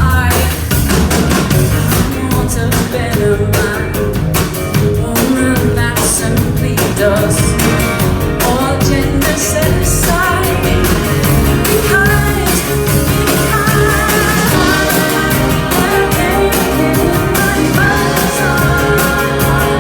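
Live rock band playing a song loudly, with singing and guitar over a steady beat.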